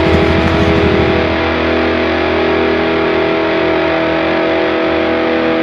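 Background music: distorted electric guitar holding sustained chords, with a driving low rhythm that drops out about a second in.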